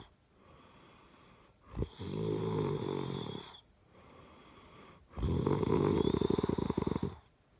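Snoring in slow, regular breaths: two long snores about three and a half seconds apart, with quieter breathing between them. The second snore has a fluttering rattle.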